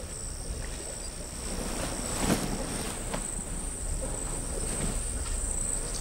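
Insects chirring steadily at one high pitch over a low steady rumble, with a single short knock about two seconds in.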